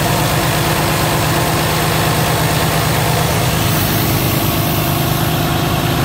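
Semi truck's diesel engine idling steadily.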